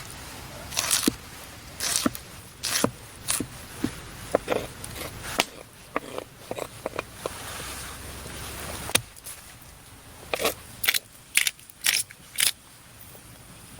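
A run of irregular, sharp crunches and crackles, some in quick pairs, spaced unevenly a fraction of a second to about a second apart.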